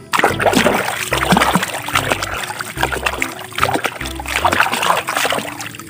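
Water splashing and sloshing as a hand swishes a small toy back and forth in a plastic tub of muddy water. Background music plays underneath.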